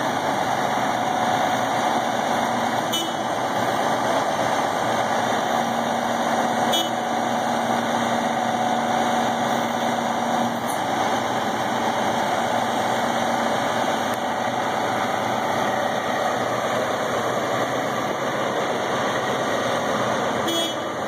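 Truck engine running steadily to power a truck-mounted Hiab knuckle-boom crane's hydraulics while the crane holds a forklift on its hook, with a faint steady whine through roughly the first half.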